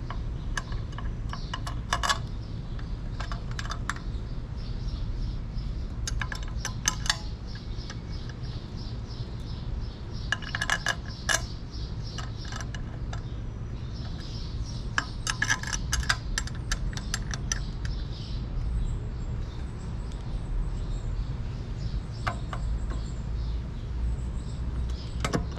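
Screws being driven by hand with a metal tool to fasten a quick-release gas cap and grab bar onto a motorcycle fuel tank: short bursts of quick metallic clicking and clinking every few seconds, over a low steady hum.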